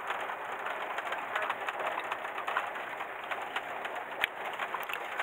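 Steady running noise inside a moving Indian Railways sleeper carriage, with light rattles and small clicks and one sharper click about four seconds in.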